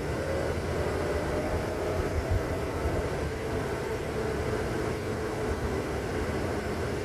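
Steady low rumble of a moving vehicle, with a faint hum of engine or motor tones over it.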